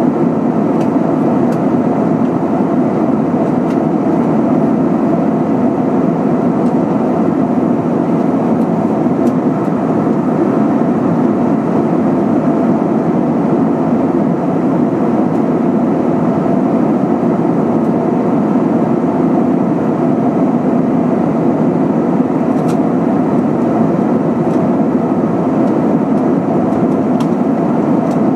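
Steady in-flight cabin noise of an Airbus A320-232: the rush of air past the fuselage and the drone of its IAE V2500 engines, at an even level throughout.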